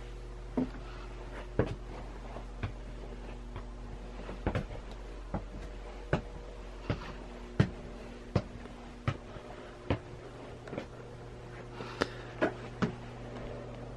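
Footsteps on wooden stairs and floorboards, a knock roughly every three-quarters of a second, over a steady low electrical hum.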